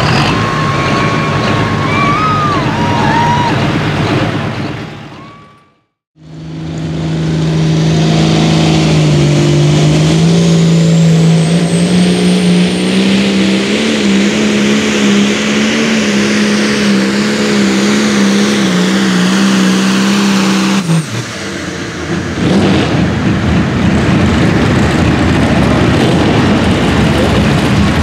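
Pulling tractor engines running at full throttle under load. The first fades out about six seconds in; the next runs hard with a slowly rising pitch and a faint high whine above it, then drops sharply in pitch about three quarters of the way through as the throttle comes off, giving way to a rougher, lower engine sound.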